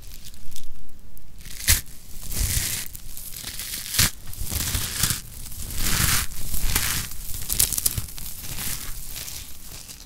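Dry soap curls and balls of pressed soap curls being crushed and squeezed by hand, giving crisp, uneven crackling and crunching with two sharp cracks about 2 and 4 seconds in.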